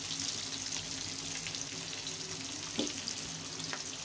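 Chopped green bell pepper, garlic and green chilli sizzling steadily in oil in a kadhai over low heat, with a light knock about three seconds in.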